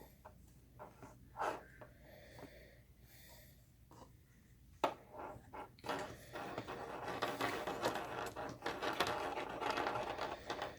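Quiet handling of slime-kit items: a few soft clicks and one sharper knock, then about five seconds of steady scratchy rustling and scraping.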